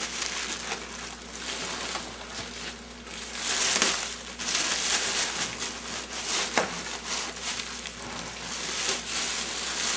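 Plastic bags wrapped around expanding-foam packing blocks rustling and crinkling as hands grip and pull at them, swelling and fading, with a few sharp crackles.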